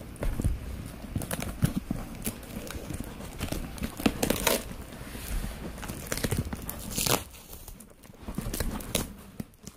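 A shipping package being handled and opened by hand: rustling and crinkling of packaging with scattered knocks and clicks, and two short tearing or scraping rushes about four and seven seconds in.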